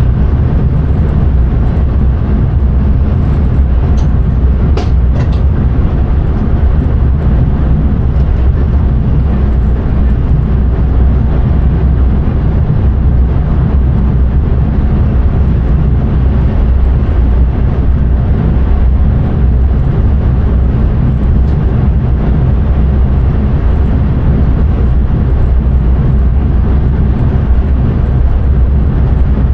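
Intercity train running at speed, heard from the driver's cab: a steady low rumble of wheels on rails and running gear, with a few faint clicks about four to five seconds in.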